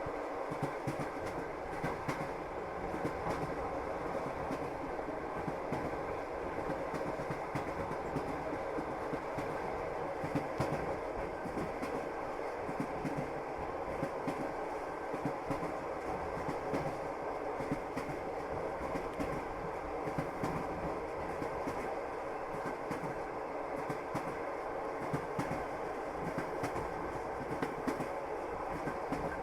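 Train wheels rolling over the rails, heard from inside a moving passenger carriage: a steady rumble with frequent short knocks of wheels over rail joints.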